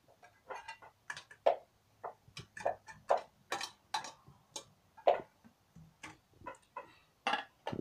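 Irregular clinks and knocks of a glass lid and the stainless-steel tier of a two-tier electric steamer being lifted off and set down, a couple of taps a second.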